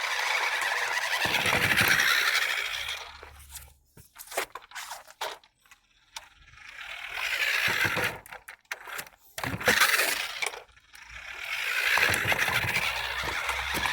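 A remote-control car driving about, its motor and wheels swelling loud and fading three times as it comes close and moves away, with a quieter spell of scattered clicks in between.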